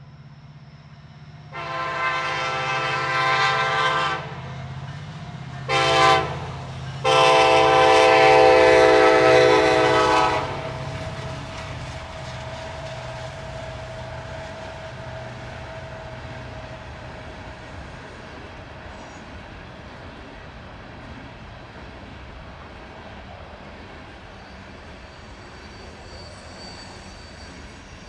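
Norfolk Southern diesel locomotive's multi-chime air horn sounding a long blast, a short blast and a final long blast, the horn signal for a road grade crossing, over the low drone of the locomotive's diesel engine. After the horn stops, the loaded coal hopper cars roll past with a steady rumble and clickety-clack of wheels on rail.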